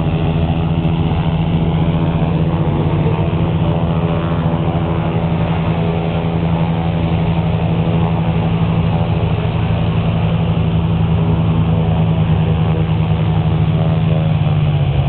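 Light aircraft piston engine and propeller running steadily and loudly, falling slightly in pitch near the end.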